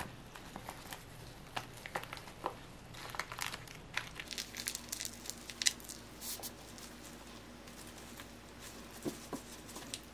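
Dried laver sheet and rubber kitchen gloves crinkling and crackling as gimbap is rolled and pressed by hand, in quick irregular bursts that thin out after about six seconds.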